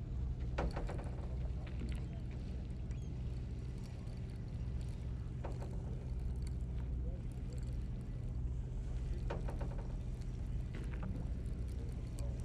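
Sportfishing boat's engine running with a steady low hum, with brief snatches of voices from people on board a few times.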